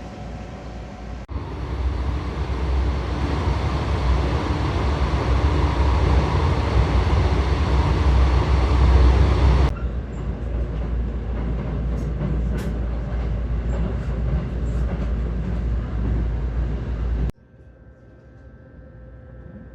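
A train running on the rails: a steady, loud rumble with a noisy hiss above it. It is heard in several shots that change abruptly, about a second in and about ten seconds in, and near the end it drops suddenly to a much quieter level.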